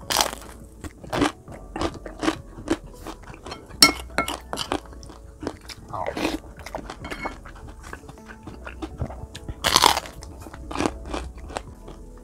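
Close-miked biting and chewing of crispy fried food: a string of irregular crunches, loudest about four seconds in and again near ten seconds, over faint background music.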